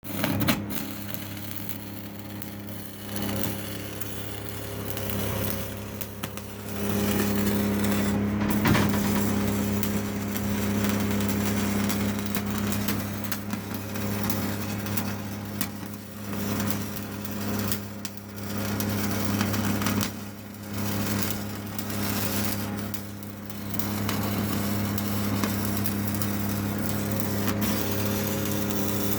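Welding arc crackling and hissing steadily, broken off briefly several times as the bead is stopped and restarted, over a steady low hum.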